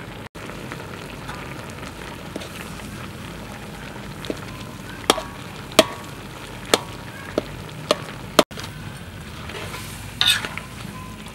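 Stingray stir-fry sizzling steadily in a wok, with a metal spatula clinking and scraping against the pan several times in the second half, most sharply near the end.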